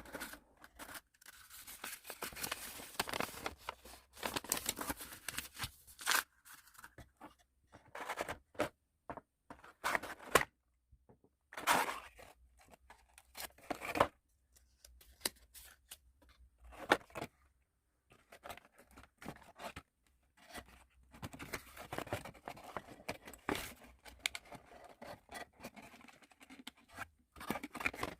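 Hands unwrapping a small package: paper and plastic packaging rustling, tearing and scraping in irregular strokes, with a few sharp clicks and short pauses.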